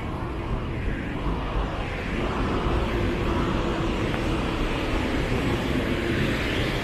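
Motor traffic noise: a steady rumble of engines and tyres, getting a little louder about two seconds in.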